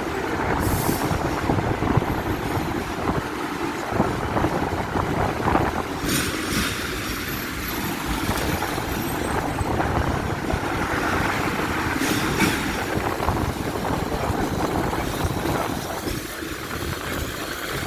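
Hong Kong double-decker electric tram running along street rails: a steady rumble with a few sharp clanks and rattles.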